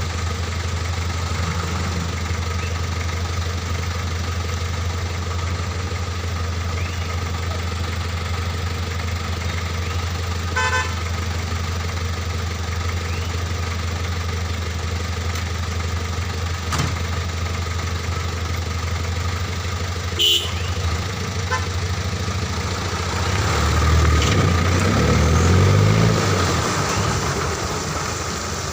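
A vehicle engine idles with a steady low hum. A horn gives two short toots, about ten and twenty seconds in. Near the end an engine grows louder and its pitch rises and falls as a vehicle revs and passes.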